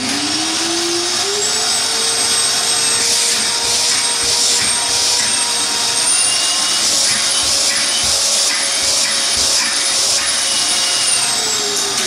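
Canister vacuum cleaner switched on and running steadily, a loud suction whine that rises in pitch over about the first second and a half as the motor spins up and starts to fall near the end as it is switched off. A test run with a substitute filter glued in, and the machine works again.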